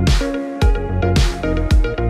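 Electronic background music with a steady beat: a deep kick drum about twice a second under held chords and cymbal hiss.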